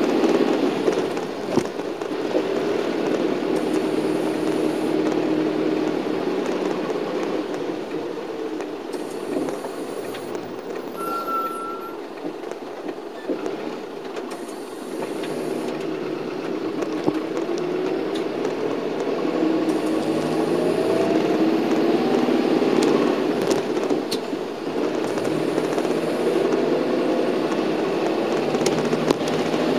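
Shuttle bus engine and road noise heard from inside the passenger cabin, the engine note rising and falling as the bus drives on, with a longer climb in pitch in the second half and a few small knocks. There is a short high beep about eleven seconds in.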